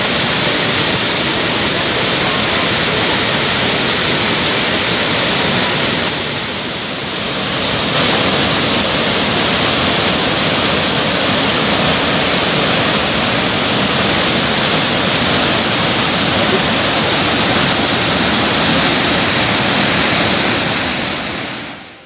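Waterfall in heavy flow, a swollen torrent of muddy brown water pouring over a rock ledge, with a loud, steady rush of falling water. It dips slightly about six seconds in and fades out near the end.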